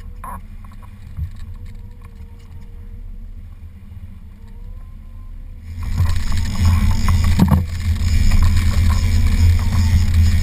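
Motorboat engine running at low speed, then much louder from about six seconds in as it speeds up, with a heavy low rumble and hiss.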